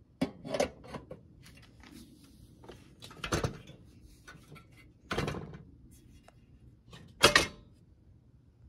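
Metal parts of a Radius No.119 stove being handled, lifted and set down: a handful of short clinks and knocks, the loudest one near the end.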